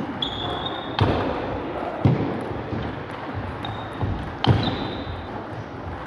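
Table tennis ball knocking off paddles and table during a rally, echoing in a large sports hall, with a few short high squeaks between the strokes.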